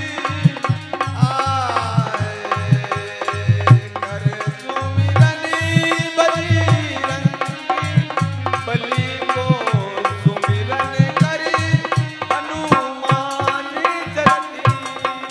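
Dholak drum playing a quick rhythm with deep bass strokes, under the harmonium's sustained reed tones, with a man's voice singing in places.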